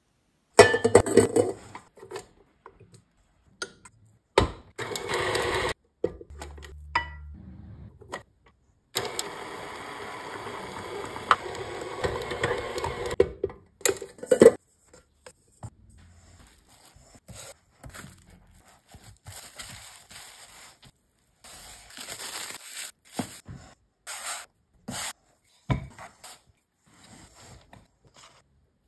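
A string of kitchen preparation sounds: a stand mixer with a paddle attachment runs steadily for about four seconds near the middle and stops abruptly. Scattered knocks, clatters and scrapes follow as dough is handled and cut into rounds on a marble counter.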